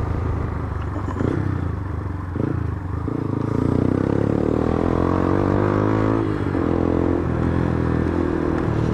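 Small single-cylinder motorcycle engine running under way, its pitch climbing steadily as it accelerates, dropping sharply about six seconds in, then holding steady.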